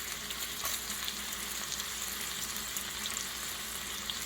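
Bacon frying in a cast iron skillet: a steady sizzle with fine crackling pops.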